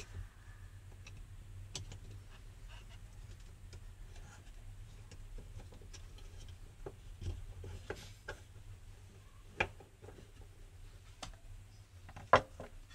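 Screwdriver tapping and scraping on a fuel level sender's plastic locking ring, in scattered light clicks and knocks, with a sharper knock near the end.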